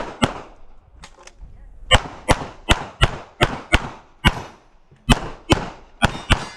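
CZ Shadow 2 9mm pistol fired rapidly through a practical-shooting stage: about a dozen sharp shots, mostly in pairs a little under half a second apart, with short pauses between groups. Two fainter shots come about a second in.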